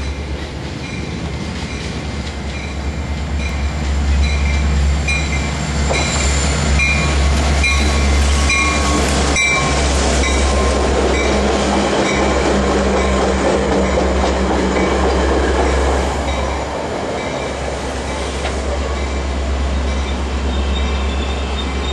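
Metra commuter train, an MP36PH-3S diesel locomotive leading bilevel coaches, rolling into the station. A steady low rumble carries through, with the wheels clicking rhythmically, a little over once a second, between about 4 and 10 seconds in. It is louder through the middle and eases off about 16 seconds in as the train slows.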